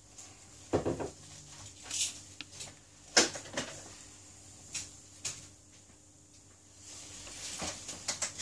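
Scattered light knocks and clicks of small hard objects being handled and set down, about seven over several seconds, with the loudest about three seconds in.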